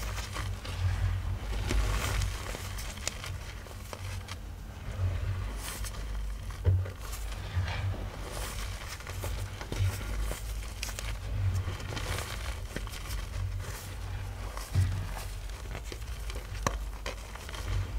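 Soft, powdery chalk blocks being crushed and crumbled, an uneven run of crunching and crackling with a powdery hiss. Low thumps of handling run underneath.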